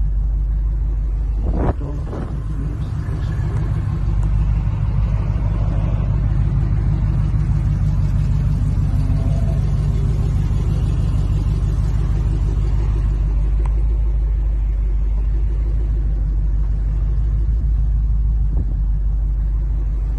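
A loud, steady low rumble, with a faint murmur in the middle and two short knocks about two seconds in.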